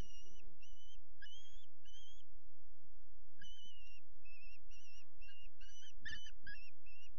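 Young common kestrels in a nest box giving a series of short, thin, slightly wavering calls: a few at first, then after a pause a quicker run of about nine. A couple of dull bumps from birds moving on the box floor come about six seconds in.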